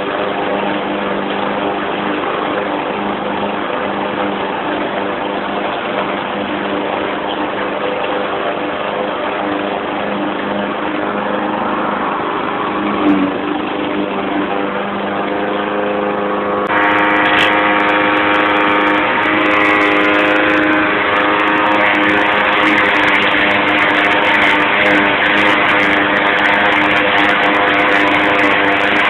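YardMan push mower's 159cc PowerMore single-cylinder gas engine running steadily at working speed. About two-thirds of the way in, the sound turns suddenly louder and brighter and stays that way.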